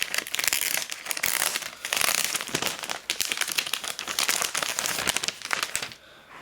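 Packaging being opened by hand: plastic and cardboard crinkling and crackling with many irregular sharp clicks, dying down near the end.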